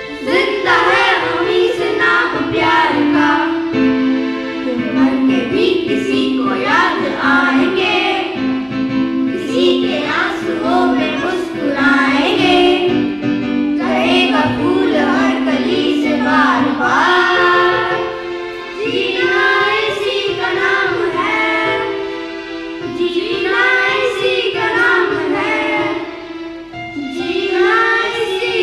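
A group of children, boys and girls together, singing a Hindi song in unison.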